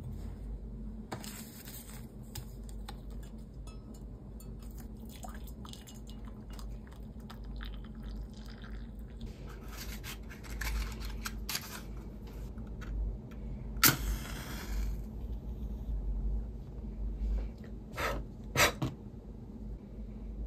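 A wooden match struck on a matchbox, a sharp scrape followed by about a second of hiss as it flares, among soft handling noises. Two short clicks come near the end.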